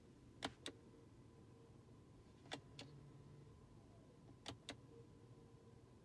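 Electric parking brake switch in a 2018 Alfa Romeo clicked three times, each a quick double click about two seconds apart, with a faint motor whir between clicks from the rear caliper parking-brake motors. The brake is being cycled a couple of times after the new rear pads went in, to make sure it applies and releases properly.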